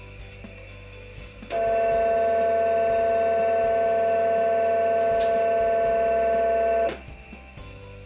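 Brushless DC motor on an ODrive controller giving a steady, loud electrical whine of several pitches together. It starts abruptly with a click about a second and a half in and cuts off with a click after about five seconds, leaving a low, quieter hum.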